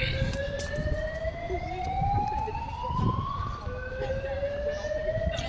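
Building fire alarm sounding: a slow rising tone climbs for about three and a half seconds, breaks off, and starts low again for a second sweep, over a low background rumble.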